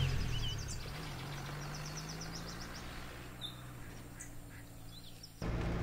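A jeep's engine fading as it drives away, with birds calling over it: short warbling calls at first, then a fast trill about two seconds in. Near the end a steady engine drone cuts in abruptly.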